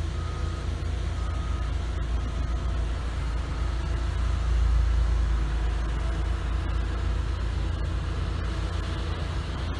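Diesel earthmoving machines, a padfoot compactor roller and a CAT 12K motor grader, running as a steady low rumble. A reversing alarm beeps about twice a second for the first couple of seconds, then stops.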